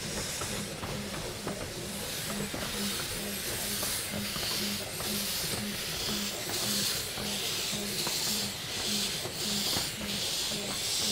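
A 15-inch gauge steam locomotive moving off slowly with its cylinder drain cocks open. Steam hisses out in a steady rhythm of about two beats a second.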